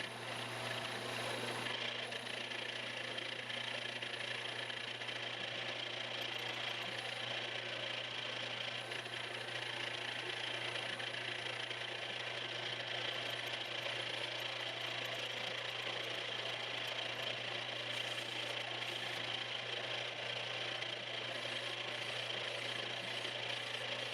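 Shop machine tool running steadily: a constant motor hum under an even whirring hiss, which stops at the very end.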